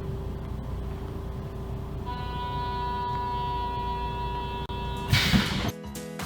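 Train running with a steady low rumble, and a long, even train horn blast starting about two seconds in and lasting about three seconds. A short loud burst of noise follows, then music begins near the end.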